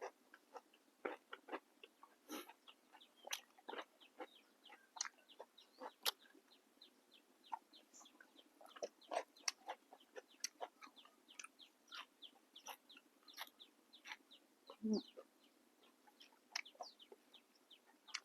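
Close-up crunching and chewing of fresh raw vegetables: many short, sharp, irregular crunches as the food is bitten and chewed.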